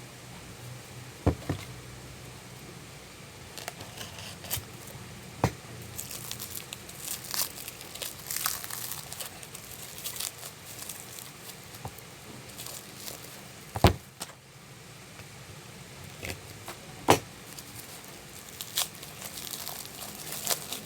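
Plastic packaging crinkling and rustling as it is handled and unwrapped, with a few sharp clicks and knocks, the loudest about fourteen seconds in.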